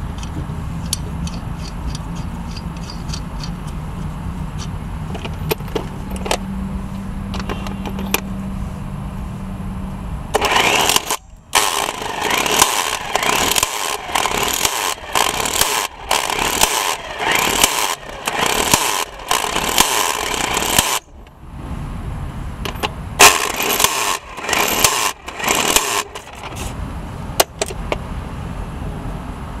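Impact wrench hammering a wheel lug nut back on in a run of short bursts, starting about a third of the way in, pausing briefly, then a few more bursts. Before that, a few light metal clicks over a steady low hum.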